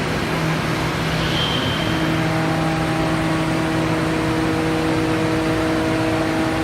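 Parpas Diamond Linear 30 five-axis portal machining centre milling a mould: steady machining noise over a low hum. A brief high whistle comes about a second in, and a set of steady whining tones joins about two seconds in.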